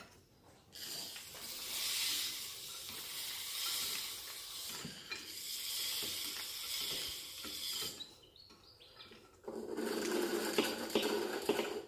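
Old grinding-stone wheel turned by a makeshift drawbar-and-bolt hand crank: a steady hissing scrape with light mechanical clicks, stopping about eight seconds in, then resuming rougher and lower for the last couple of seconds.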